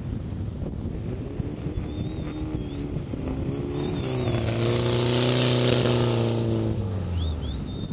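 A dune buggy engine drives past on sand. It grows louder from about three seconds in, peaks, then drops in pitch and fades as it pulls away. Wind buffets the microphone throughout.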